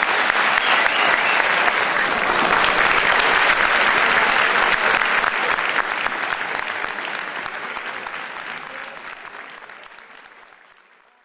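Audience applauding. The clapping holds steady for the first half, then fades away smoothly to silence by the end.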